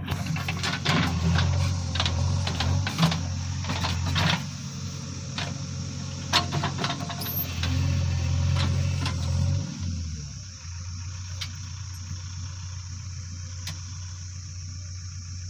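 JCB 3DX backhoe loader's diesel engine running with a steady low drone, with frequent clanks and knocks over the first ten seconds; after that the engine runs on more steadily and a little quieter.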